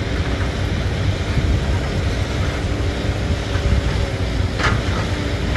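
Heavy diesel machinery running steadily, a low rumble mixed with wind buffeting the microphone. There is a brief high chirp or squeak about four and a half seconds in.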